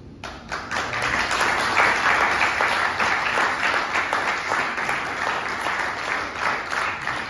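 Audience applauding: many people clapping in a hall. It starts suddenly just after the poem reading ends and holds steady.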